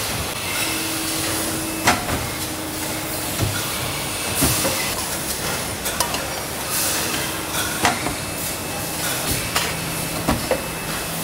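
Metal-working factory floor: machines running with a steady hum and hiss, and sharp metallic knocks every couple of seconds, about five in all.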